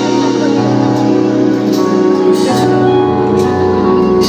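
Live band music: the band on stage plays long held chords.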